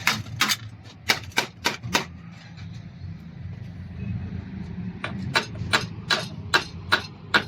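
Common rail diesel injectors clicking sharply as they are fired during a spray test, in two uneven runs of two or three clicks a second, over a steady low hum.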